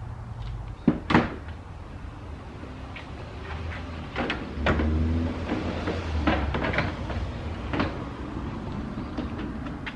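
Plastic front bumper cover and grille of a Chevrolet Tahoe being pried loose by hand: two sharp loud clicks about a second in as fasteners let go, then more knocks and a low rumbling thud as the panel is worked free.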